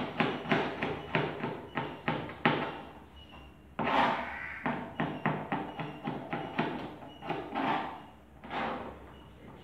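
Kitchen knife chopping a carrot on a cutting board: quick, even chops at about four a second, with a short pause about three seconds in before the chopping resumes.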